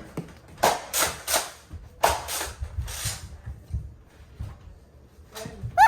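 Nerf blaster firing in short puffs of air: three quick shots about half a second in, then a couple more around two seconds.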